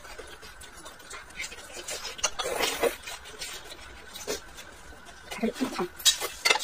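Close-up eating sounds: wet chewing and slurping of soft steamed eggplant, with a louder slurp about two and a half seconds in and a few sharp clicks of wooden chopsticks near the end.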